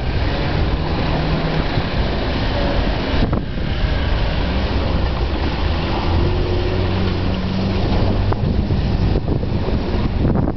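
Simca Marmon SUMB military truck's 4.2-litre V8 engine running under load as the truck drives through mud, its note shifting in pitch a few times. Wind buffets the microphone throughout.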